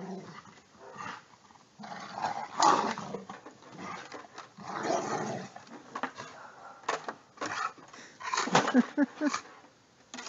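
A dog making low growls and short whines in scattered bursts as it struggles with a stick at a gap in a wooden fence, with a few sharp knocks about two-thirds of the way through.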